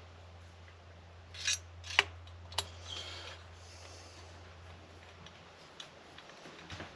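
A few sharp metallic clicks and a brief scrape from small hand tools working on a chainsaw's engine parts, over a steady low hum.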